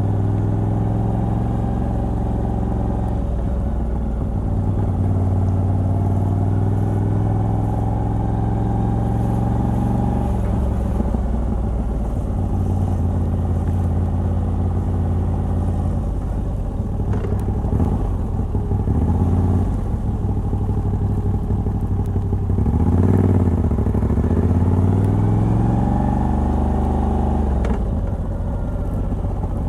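Moto Guzzi V85TT's air-cooled transverse V-twin, breathing through the stock exhaust with a Mistral decat pipe, running under way while the bike is ridden. The engine note changes several times, dipping and rising again about two-thirds of the way through.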